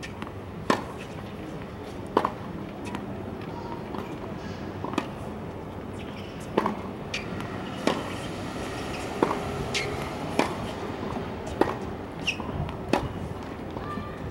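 Tennis rally on a hard court: the ball pops off racquet strings and bounces, with a sharp crack about every one to one and a half seconds, some louder than others.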